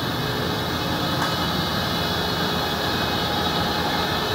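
Six-unit Solna Distributor web offset printing press running: a steady mechanical noise with several faint whining tones held throughout.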